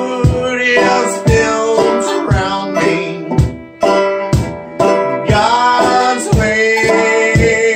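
Acoustic bluegrass band playing: banjo and mandolin picking with a bowed fiddle, over a cajon thumping about twice a second. The music thins briefly about four seconds in, then picks up again.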